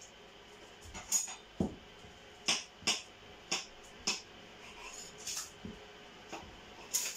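About a dozen sharp, irregular clicks and knocks of hard kitchen items being handled, with one duller thump about one and a half seconds in.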